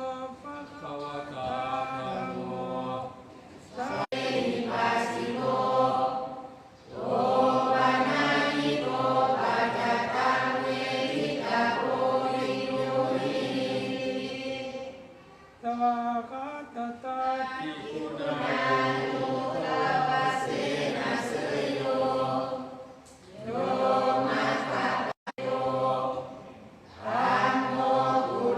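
A group chanting Pali verses in unison, a Thai Buddhist evening chant: long sung phrases on sustained pitches, broken every few seconds by short pauses for breath.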